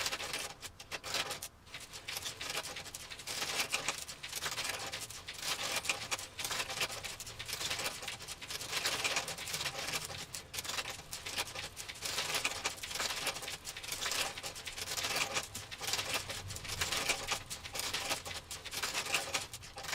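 Wooden UGears chain-hoist marble run in motion: wooden gears and chain lift links clattering while glass marbles roll and click down the wooden tracks, a dense, continuous, irregular rattle.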